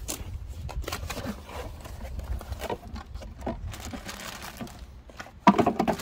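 Cardboard and plastic packaging being handled while unpacking, with small scrapes and knocks over a low rumble, and a louder clatter near the end as a plastic-bagged power cord is pulled out.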